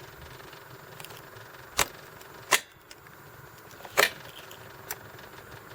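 Ignition key being worked in the switch of a Kubota BX2380 tractor: four sharp clicks and key jingles a second or so apart, with no starter cranking, as the engine won't crank.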